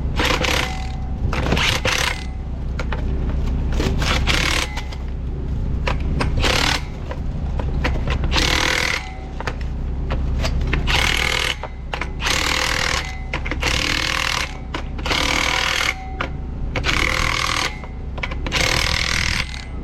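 Impact wrench running nuts down onto bolts in about a dozen short bursts, over a steady low engine hum.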